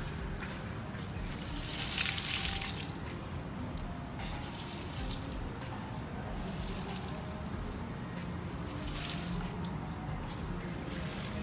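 Water trickling and dripping in a small fish tub, louder for about a second near the start.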